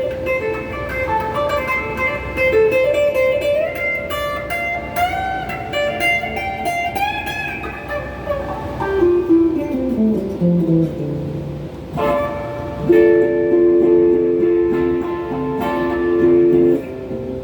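Electric guitar, a Donner Q1 HSS strat-style, played through a phaser pedal and a Klon-clone overdrive into a Crate GX30M amp: single-note melody lines, a descending run about nine seconds in, then held chords ringing out.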